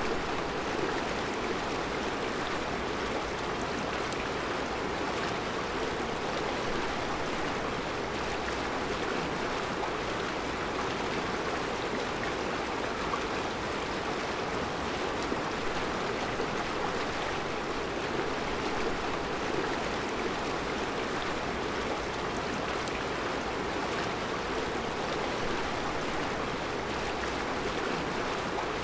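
Mountain river flowing over round rocks in a rocky bed: a steady, even rush of water.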